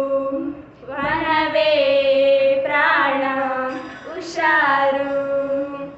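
Two teenage girls singing a Kannada song without instruments, in three long phrases with held notes. The singing fades out near the end.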